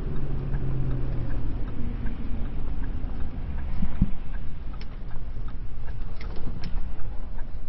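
Steady engine and road rumble inside a pickup truck's cab, with the turn-signal relay ticking about twice a second.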